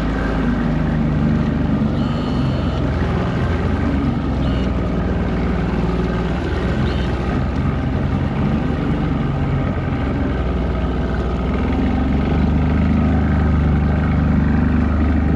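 Outboard motor on an aluminum boat running under throttle, a steady engine note that gets a little louder about twelve seconds in.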